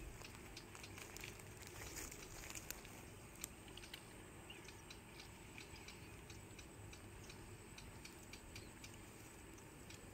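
Quiet outdoor ambience: a faint steady low background with scattered light clicks and crackles.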